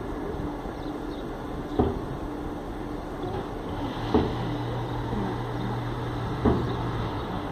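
A car running at low speed over steady background noise, with a low hum coming in for a few seconds past the middle. Three sharp knocks fall about two seconds apart.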